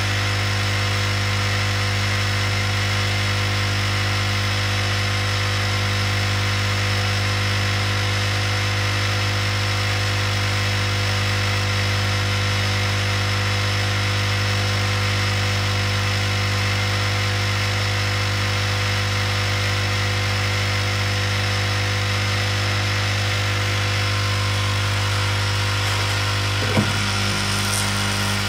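Hot air rework station running with a steady, even hum, blowing hot air onto an iPhone SIM card reader to melt the solder and free it from the logic board. A single sharp click near the end.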